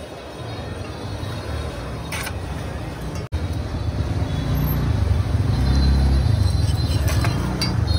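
Street traffic rumble, a steady low drone of passing vehicles. It cuts out for an instant about three seconds in, then returns louder.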